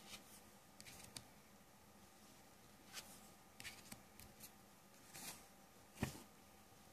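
Cards flipped by hand through a deck: faint, scattered slides and flicks of card stock, with one louder tap about six seconds in.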